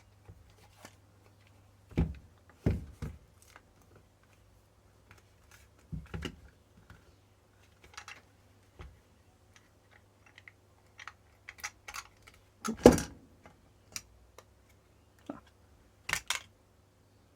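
Irregular clicks and knocks of a screwdriver, small screws and the plastic casing of a handheld LED torch being handled and worked apart, with the loudest knock about 13 seconds in. A faint low hum runs underneath.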